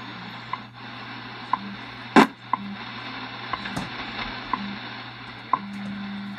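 WWV time-signal broadcast from a Yaesu FRG-7 shortwave receiver's speaker: a short tick every second over steady static hiss, with low pulses of varying length from the time code between the ticks. A loud click about two seconds in.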